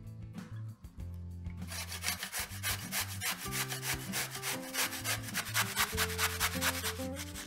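Zucchini being grated on a stainless steel box grater: a quick, even run of rasping strokes that starts a little under two seconds in.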